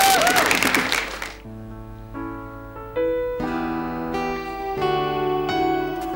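Audience applause dying away about a second in, then a keyboard starts a song's intro with slow, held chords that change about every second.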